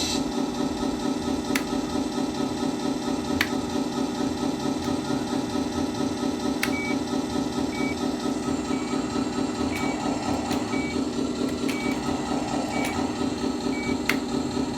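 RC truck sound card playing a simulated diesel truck engine idling, a steady throbbing drone through a small speaker, with a few sharp clicks. From about seven seconds in, a short high beep sounds about once a second.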